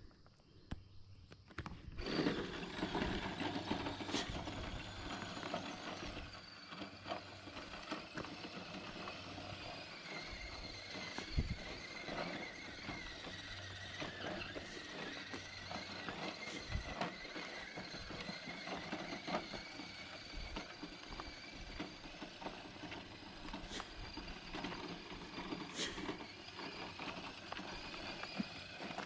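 Electric motor and drivetrain gears of an Enduro Trail Walker RC crawler whining as it drives, starting about two seconds in, the pitch wavering up and down with the throttle, with scattered clicks and ticks.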